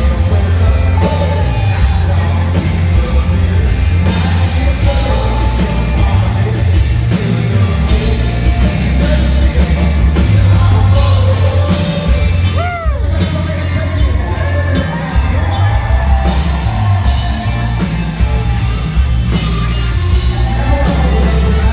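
Live country band playing a song, with drums, electric guitar and heavy bass, and a male lead singer.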